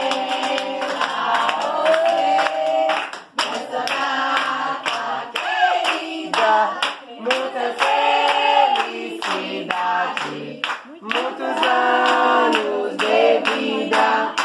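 A group of mostly women's voices singing a birthday song together in chorus, with hand-clapping along.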